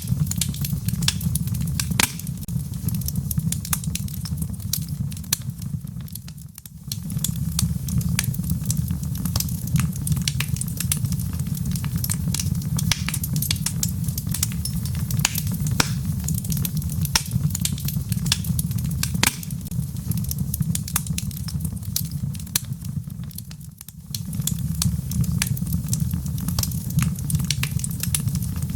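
Wood fire burning in a fireplace: a steady low rumble of flame with frequent sharp crackles and pops. The sound briefly fades and returns twice, about six seconds in and again near twenty-four seconds.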